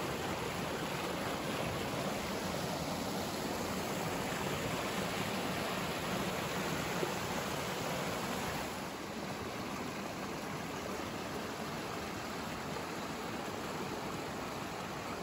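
Creek water rushing and splashing over rocks in small cascades, a steady rush that becomes slightly softer about nine seconds in.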